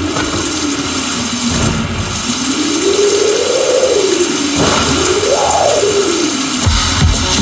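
Howling storm-wind sound effect: a whistling tone rises and falls in pitch twice over a rushing noise. Near the end the first drum beats of the song come in.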